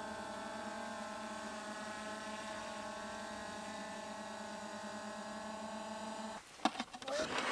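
A steady machine hum of several held tones that cuts off suddenly about six seconds in, followed by a few clicks and knocks.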